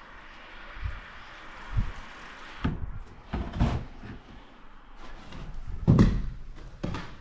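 A series of knocks and thumps, several low and dull, with the loudest about six seconds in; a faint hiss underneath dies away near the middle.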